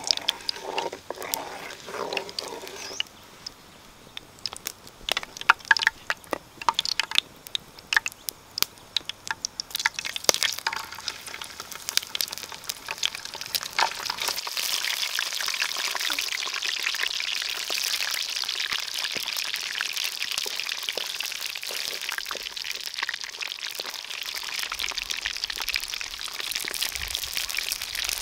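Hot oil sizzling steadily in a pan as food fries, starting about halfway through. Before that come a run of sharp clicks and knocks.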